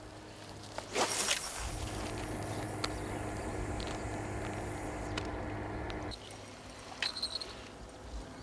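A surf-casting rod swung through a cast, with a sharp swish about a second in, followed by a steady low hum that cuts off suddenly near six seconds. A few small clicks a second later, near the end.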